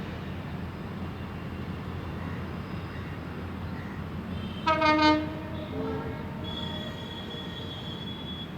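WDP4D diesel locomotive running with a steady rumble. About halfway through it sounds a short, loud two-tone horn blast, a high note then a lower one. A thin, steady high-pitched squeal follows and holds on.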